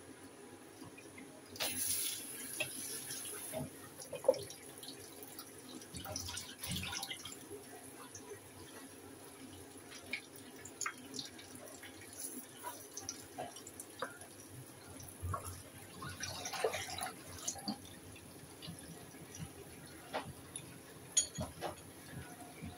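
Kitchen prep sounds: a few short rushes of running water, with scattered light knocks and clinks as glass jars and a spoon of salt are handled.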